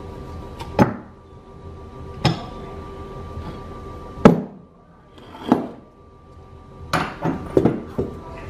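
Cast-iron parts of an old Pickering steam-engine governor knocking and clinking against each other and on a wooden workbench as the governor is taken apart. There are separate knocks at intervals, the loudest about halfway through, and a quick run of several near the end, over a faint steady hum.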